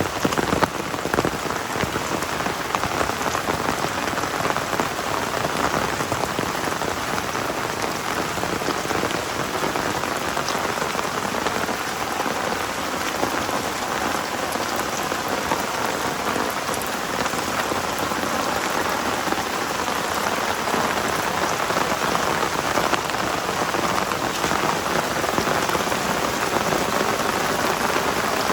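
Heavy rain falling steadily, a dense hiss of drops striking surfaces, with many small drop ticks through it.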